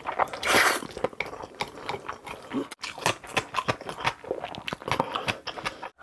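Close-miked eating: a loud slurp of black-bean noodles (jjajangmyeon) about half a second in, then steady wet chewing with many small clicks and lip smacks.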